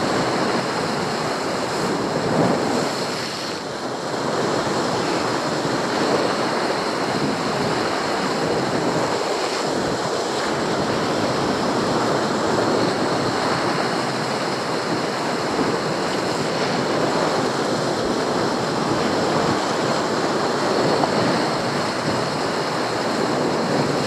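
Sea surf surging and breaking against a rocky shore: a steady rush of churning water, easing briefly about three seconds in.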